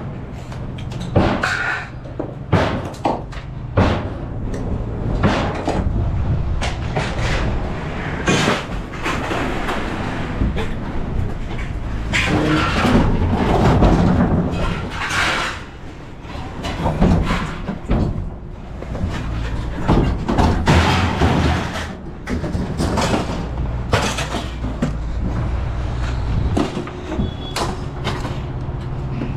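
Repeated knocks, clanks and bangs over the steady hum of a vehicle engine running.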